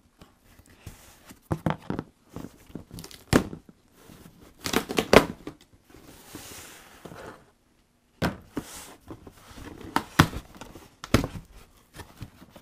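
A taped cardboard box being opened: scissors cutting the packing tape, tape tearing and cardboard flaps rustling and knocking as they are pulled open, in a string of short irregular bursts and sharp knocks.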